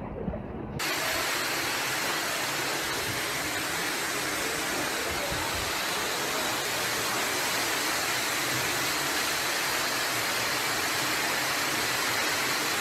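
Floodwater rushing and pouring down a staircase: a steady, even hiss of water that starts suddenly just under a second in.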